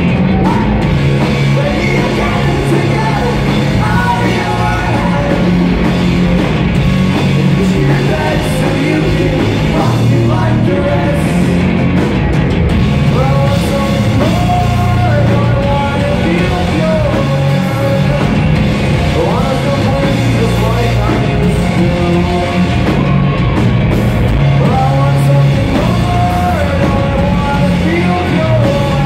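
Live rock band playing loud and steady: distorted electric guitars, bass guitar and drums together.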